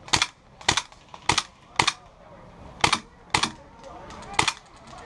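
Gas blowback airsoft gun firing single shots, seven sharp cracks spaced about half a second to a second apart.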